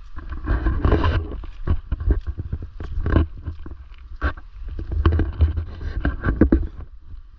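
Footsteps and rustling of people climbing a trail on foot, irregular crunches and scuffs, over a steady low rumble on the microphone.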